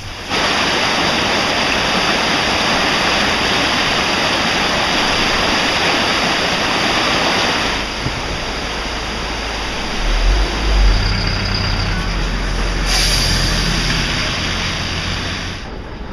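A swollen river in spate rushing, a steady loud roar of floodwater. It starts suddenly, and about halfway through it becomes duller with a low rumble underneath.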